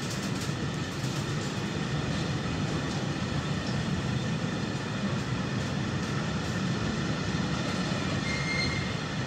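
Freight train of loaded container flatcars rolling past on the station track: a steady noise of wheels on rails, with a brief faint high squeal near the end.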